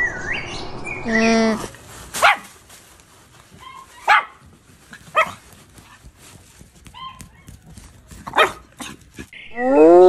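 Small Pomeranian dogs barking: several sharp, separate yaps, a second or two apart. Just before the end a loud spotted hyena whoop begins, rising in pitch.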